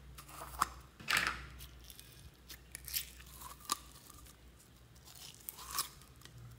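Squishing and crackling of thick green snow slime being squeezed out of a flexible plastic cup, with the cup's plastic crinkling. A longer crackle comes about a second in, and several sharp clicks follow.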